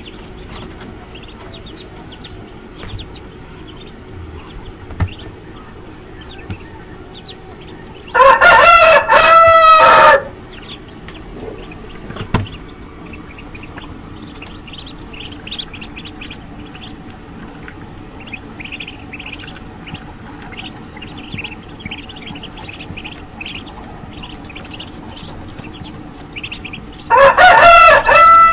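A rooster crows twice, loud, about eight seconds in and again near the end. Between the crows, a crowd of newly hatched ducklings peeps softly.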